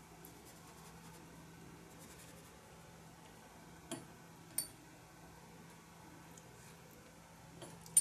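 Faint sounds of watercolour painting: a brush lightly working, with two small clicks about four seconds in and another at the end, over a steady low hum.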